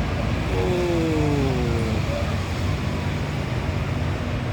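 Road traffic with buses running past, a steady engine hum. About half a second in, a clear tone slides down in pitch for about a second and a half.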